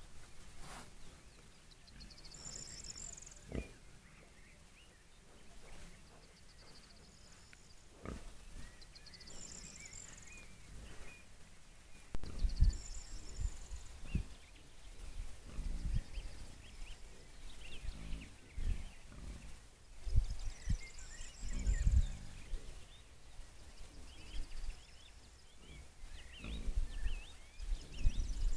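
Wild boars, a sow with striped piglets, grunting in short low bursts while they forage, the grunts coming more often in the second half. Birds sing high in the background.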